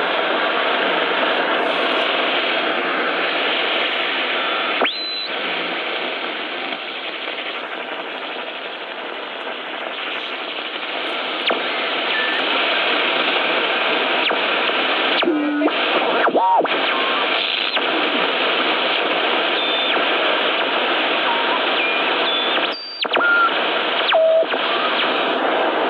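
Sony ICF-6800W shortwave receiver's speaker giving a steady hiss of static while the tuning knob is turned, with short whistles sliding in pitch and brief dropouts as it passes signals.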